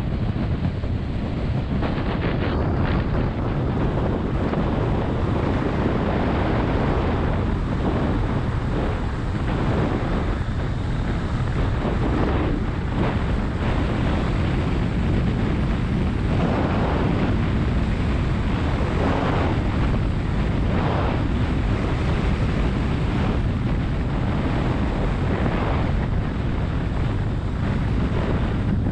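Steady wind rushing over the microphone from riding in the open back of a moving ute taxi, with the truck's engine and road noise underneath.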